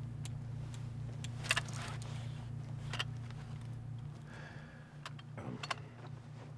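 A steady low hum with a few light clicks and a brief rustle.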